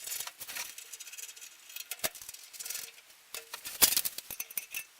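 Irregular light metallic clinks and rattles of nuts, bolts and tools being handled on a table saw's steel extension rails, with a sharper knock about two seconds in and another near four seconds.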